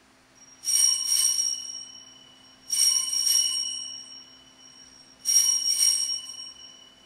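Altar bells rung three times, each a short shake of bright, high ringing that dies away over a second or two, marking the elevation of the chalice at the consecration of the Mass.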